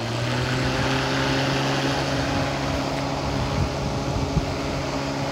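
Corded electric rotary lawn mower's motor spinning up to speed at the very start, then running with a steady hum.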